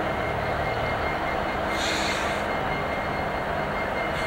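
Union Pacific diesel freight locomotives passing, their engines running with a steady drone and rumble. A short hiss comes about two seconds in.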